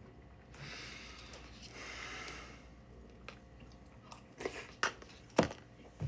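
Rustling for about two seconds, then a series of knocks and thumps that grow louder, the loudest near the end.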